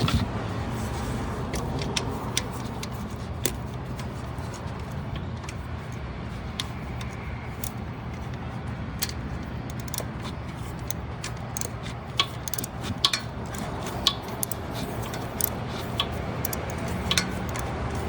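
Scattered light metallic clicks and clinks of hand tools on metal parts, coming thicker about two-thirds of the way through, over a steady low hum. The tools are working at the drive belt and its tensioner to take the belt off.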